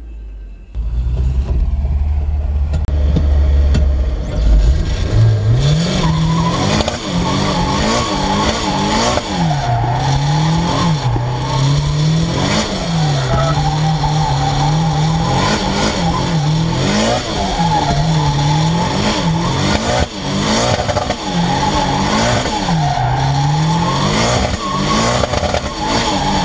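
Nissan 180SX's turbocharged SR20DET engine, heard from inside the cabin, rumbling low for the first few seconds and then revving up and down every two to three seconds as the car is held in a drift, with a steady tyre squeal over it.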